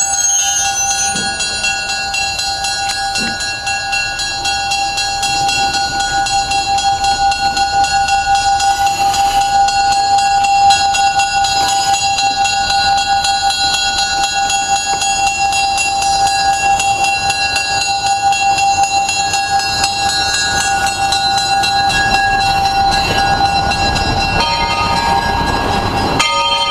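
Locomotives at close range, with a steady sound of several tones held together and unbroken; a few of the tones shift in the last few seconds.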